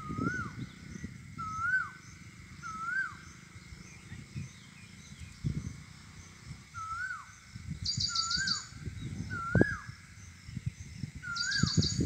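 A bird repeats a short whistled call that rises and then drops, about seven times with a pause of a few seconds in the middle. Twice a quick, high, rapid trill sounds. Gusty wind rumbles on the microphone underneath.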